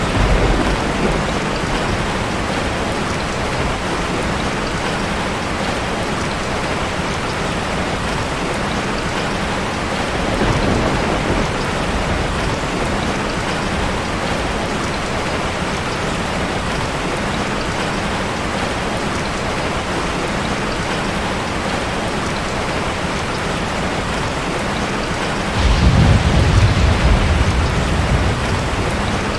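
Heavy rain falling steadily, with rolling thunder: a short rumble at the start, another about ten seconds in, and the loudest, longest rumble near the end.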